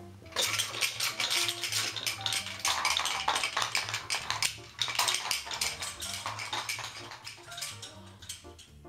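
A child's plastic pull toy clattering and rattling in a rapid, busy run of clicks as it is dragged along the floor on its string, easing off near the end. Background music with low sustained notes plays underneath.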